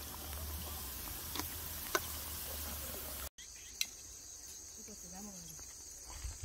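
Oil sizzling steadily in an electric deep fryer, over a low hum, with a couple of faint clicks. About three seconds in it cuts to a quieter outdoor scene with a steady high chirring of crickets and a few faint calls.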